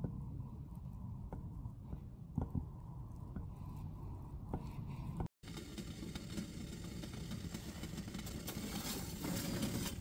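Low, muffled outdoor ambience with a few faint ticks. After an abrupt cut about halfway, a steady hiss with light crackling from a wood stove with a steel kettle heating on top, swelling slightly near the end.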